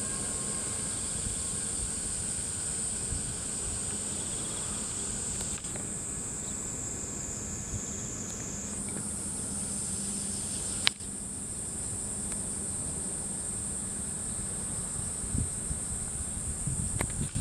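Steady high-pitched insect chorus, stepping up slightly in pitch about nine seconds in, with one sharp click about eleven seconds in.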